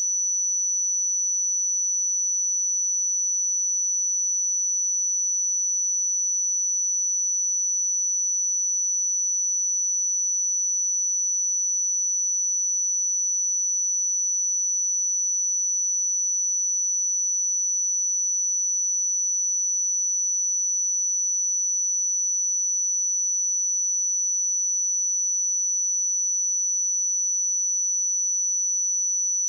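A pure 5944 Hz sine-wave test tone, a single high-pitched whistle held steady at constant level, for checking speakers or headphones.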